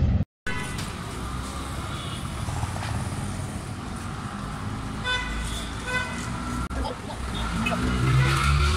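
Busy city street traffic: a steady hum of passing vehicles, with a vehicle horn sounding for about a second some five seconds in and a fainter honk about two seconds in.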